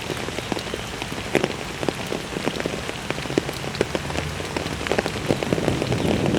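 Rain falling steadily, with many individual drops splattering close by in quick, irregular succession, growing a little heavier near the end.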